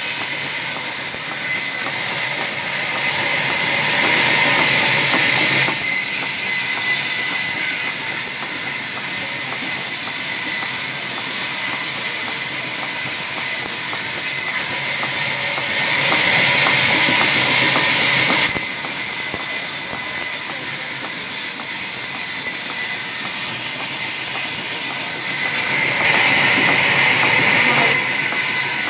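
Sawmill band saw running while a log is fed past it on the carriage, a steady mechanical noise with a high-pitched edge. It grows louder and harsher for about two seconds three times: about four seconds in, about sixteen seconds in and near the end.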